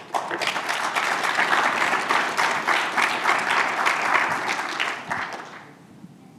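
Audience applauding, dying away about five and a half seconds in.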